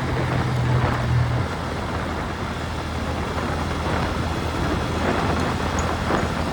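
Motorcycle engine running steadily while riding, over a haze of wind and road noise; the engine note drops slightly about a second and a half in.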